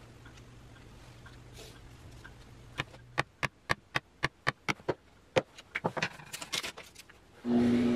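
A run of sharp taps, about three or four a second, as an awl is pricked through a paper template into the wood to mark dowel-hole centres. Near the end a drill press motor starts and runs with a steady hum.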